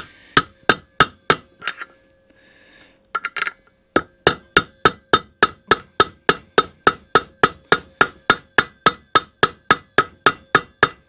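Soft-blow mallet tapping a big socket used as a drift, driving a cast-alloy cog down its shaft onto the keyway. Light, quick strikes about three a second with a faint metallic ring, after a short pause about two seconds in.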